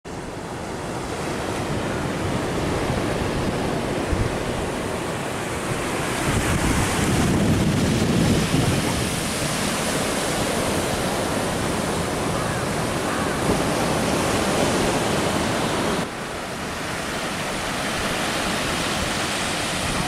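Sea surf breaking and washing up a sandy beach, a steady rushing wash that swells louder partway through, with wind buffeting the microphone.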